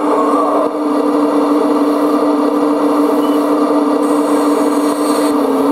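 RC scale model of a Liebherr 956 excavator running, giving a steady, even motor hum while its demolition grab rotates and opens. A high hiss joins about four seconds in and stops just before the end.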